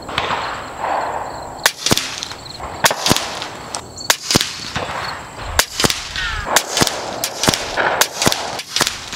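Kalibrgun Cricket .25-calibre PCP bullpup air rifle firing a string of shots with 34-grain slugs: sharp cracks about once a second, many followed closely by a second crack.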